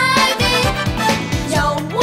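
Cartoon closing theme song: upbeat children's pop with sung vocals over a steady drum beat of about three kicks a second.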